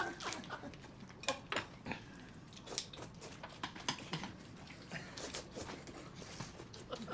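A person eating noisily: irregular chewing, smacking and slurping sounds.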